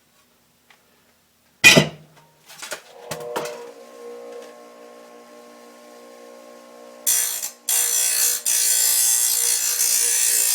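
A bench grinder is switched on with a sharp click and its motor hums steadily. From about seven seconds in, a thin steel plate is ground against the wheel to take off its sharp edges, making a loud, hissing grind that breaks off once briefly.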